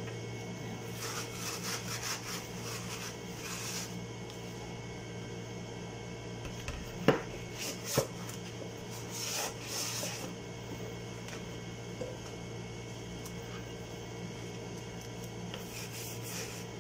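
Scrubbing by hand inside a plastic baby-bottle sterilizer tub: rubbing sounds in patches, with two sharp knocks about seven and eight seconds in.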